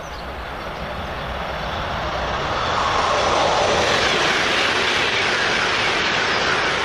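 High-speed train sound, a rushing noise that swells over the first three seconds and then holds steady, with a faint whine slowly rising in pitch.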